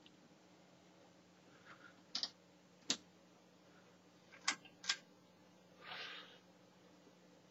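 A few irregular sharp clicks, about four spread over several seconds, and one short soft rustle near the end, over a faint steady hum.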